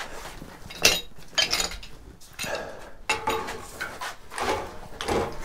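Metal clinks and clanks from a pipe wrench and threaded black iron pipe fittings being handled, a handful of separate sharp knocks.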